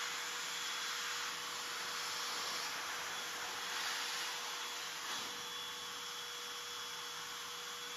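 Vacuum cleaner running steadily, drawing through a narrow crevice nozzle held over a laptop's cooling fan and heatsink to clear their dust.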